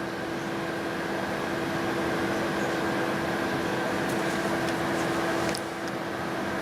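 Microwave oven running: a steady electrical hum with its cooling fan, holding a few fixed tones. A few faint ticks come late on.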